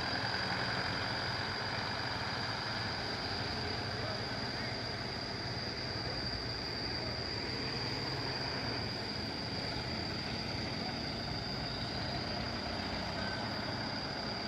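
A motor running steadily, with a constant high-pitched whine over a low hum.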